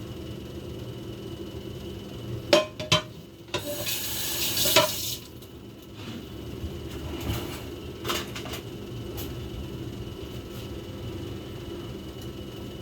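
Kitchen handling sounds: dishes and a tray clinking, with a short rush of running or pouring liquid about four seconds in, over a steady low hum.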